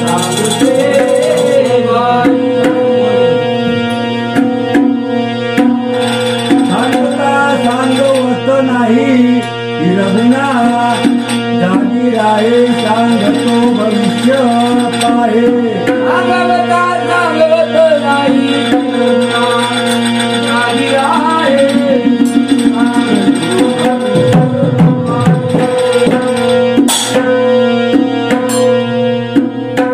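Devotional bhajan music: a dholak drum playing a fast beat under a steady held drone, with a wavering sung melody line over it.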